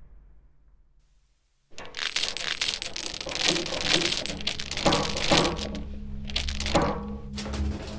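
A fading tail, then almost silence, then heavy metal chain rattling and clinking in dense quick clicks. It starts about two seconds in, pauses briefly, and rattles again for a shorter spell. Near the end a fuller sound with a steady low hum begins.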